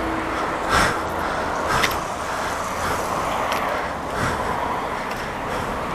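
Road traffic noise: a steady hiss of cars passing on the road, with a few faint clicks.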